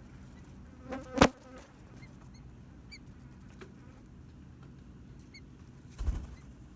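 A short buzz about a second in that ends in a sharp, loud tap, and a brief rustling thump near the end, with a few faint high peeps in between.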